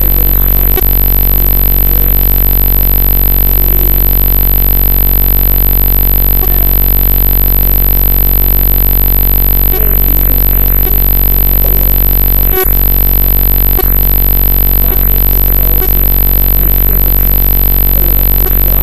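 Loud, steady electronic buzz with a high-pitched whine over it, unchanging throughout: recording noise from a fault in the audio, not sound from the scene. A few faint clicks sound through it, the clearest about twelve and a half seconds in.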